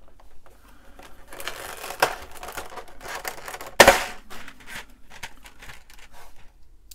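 Clear plastic tray of keyboard key switches being opened: the plastic cover crinkles for a couple of seconds, then a sharp snap just before four seconds in as the lid comes free, followed by light clicks of the switches being handled.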